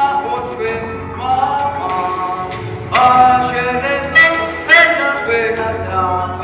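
A boy singing solo into a stage microphone, holding long notes, his voice amplified over loudspeakers.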